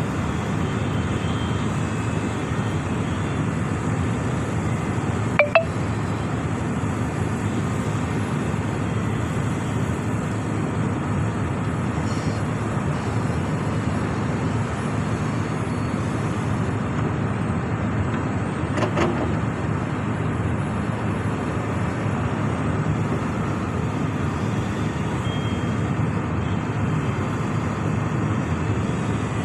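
Heavy diesel excavator running steadily under working load, with two short sharp knocks, one about five seconds in and one just under twenty seconds in.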